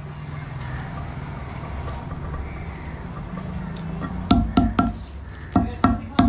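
A steady low hum, then from about four seconds in, two quick runs of three sharp, slightly ringing taps: a cobbler's hammer beating cut leather chappal straps on a granite slab.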